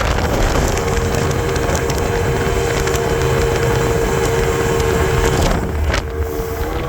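Mercury 150 hp V6 two-stroke outboard (Black Max / XR4) running steadily with the boat under way, a steady engine whine over heavy wind noise on the microphone. The sound dips slightly and loses some of its top about six seconds in.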